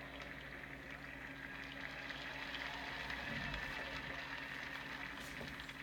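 Congregation noise, a wash of clapping and voices that swells a little in the middle and then eases off.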